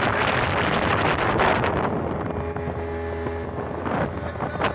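Small boat's outboard motor running steadily at cruising speed, with wind buffeting the microphone through the first couple of seconds. A single brief thump near the end.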